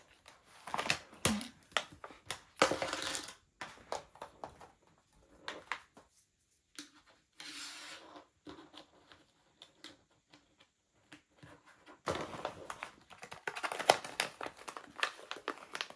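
Plastic packaging of a diamond-painting toolkit being handled and opened by hand: crinkling and rustling with small clicks of plastic pieces, in irregular bursts, busiest in the last few seconds.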